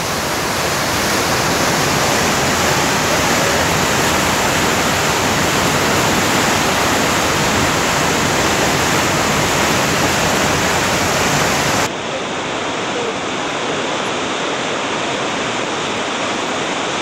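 Steady, loud rush of whitewater rapids. About twelve seconds in it changes abruptly to a slightly quieter, duller rush of river rapids.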